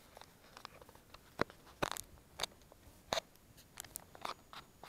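Handling noise of a small body-worn camera being adjusted: irregular clicks, taps and rubs from fingers on the camera body right at its microphone.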